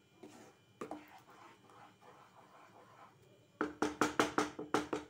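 A spoon stirring thick chilli sauce in a pan, with faint scraping. About three and a half seconds in comes a quick run of about eight ringing metallic clinks of the spoon knocking against the pan.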